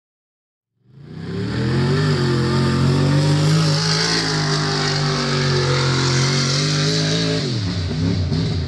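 Engine of a modified mud-bog racer held at high revs. It starts abruptly about a second in, runs loud and steady, then drops in pitch near the end.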